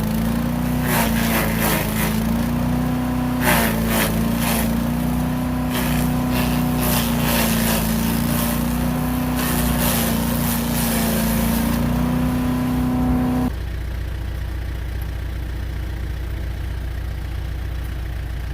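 Engine running steadily under throttle, with repeated knocks and clatter over it. About 13 seconds in, the clatter stops suddenly and the engine settles to a lower, quieter idle.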